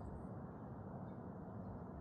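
Steady low outdoor morning ambience, a constant noise haze, with a faint high bird chirp at the very start.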